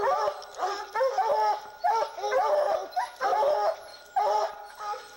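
A pack of Treeing Walker hounds baying together at the base of a tree, several dogs overlapping in repeated bursts about once a second: barking treed on a mountain lion.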